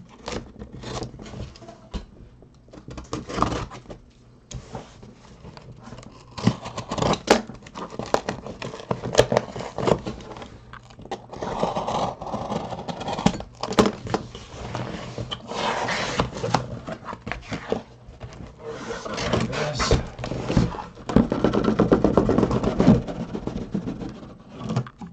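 A cardboard shipping case is opened by hand. Its packing tape is slit along the seam, and the cardboard scrapes and rustles in irregular bursts with a few sharp clicks as the flaps are worked and the outer box is pulled up off the boxes inside.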